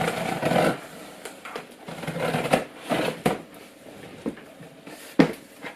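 A cardboard box being opened and its packaging handled: short bursts of scraping and rustling, with a sharp knock about five seconds in.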